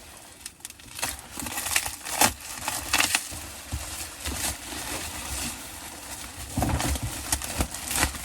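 Handling noise from the splitboard and its packaging: irregular rustling and crinkling with scattered clicks, and a few soft knocks about six and a half seconds in.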